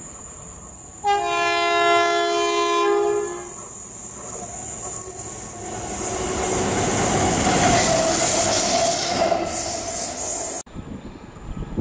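Colas Rail Class 70 diesel locomotives approaching: a two-note horn, both notes sounding together for about two seconds, then engine noise and wheel rumble growing louder as the locomotives close in. The sound cuts off suddenly near the end.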